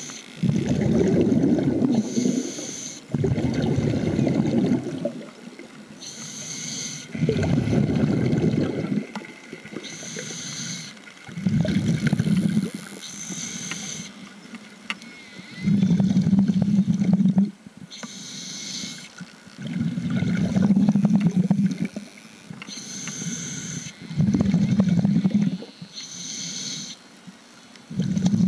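Scuba diver breathing through a regulator underwater, about one breath every four seconds: a short hiss on each inhale and a loud bubbling rumble on each exhale. The later exhales carry a low buzzing hum.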